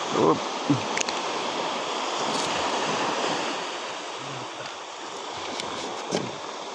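Steady rush of sea surf breaking and washing on the shore. There are brief voice sounds near the start and again near the end.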